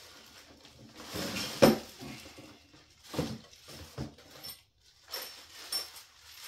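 Plastic packaging rustling and crinkling in short bursts as bagged bike parts are lifted out of a cardboard box, with light clinks of the parts inside. A single sharp knock about a second and a half in is the loudest sound.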